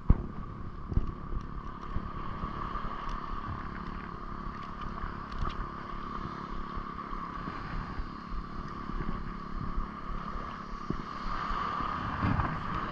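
Spinning reel cranked in a steady retrieve, its gears giving a continuous whirr that stops just before the end, over wind rumble and lapping water. A single sharp snap comes right at the start.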